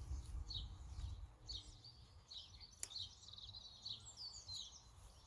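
Small birds chirping and trilling, many short high calls one after another, over a low rumble, with one sharp click about halfway through.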